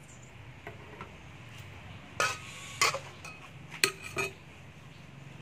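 Metal cooking utensils clinking against a wok and a mixing bowl: a couple of light taps, then four sharper clinks, each with a short metallic ring, spread over about two seconds.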